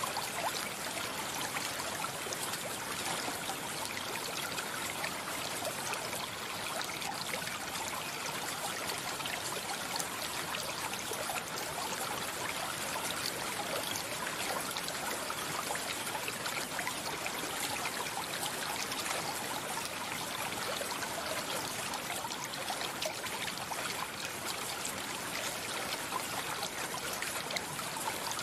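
Stream of water flowing steadily: an even, unbroken trickling rush.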